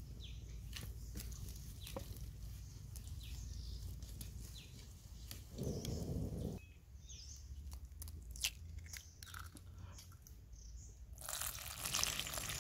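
Wood fire crackling under a covered wok, with faint bird chirps. Partway through, a spoon taps an egg to crack it, and near the end water pours with a steady splashing hiss into a bowl of flour.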